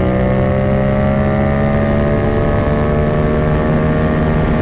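Yamaha MT-07's parallel-twin engine, fitted with an aftermarket full exhaust system, pulling hard in fourth gear, its pitch rising steadily as the bike accelerates at highway speed, over a steady rush of wind.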